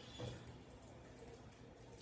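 Near silence: quiet room tone, with one faint soft knock about a quarter of a second in.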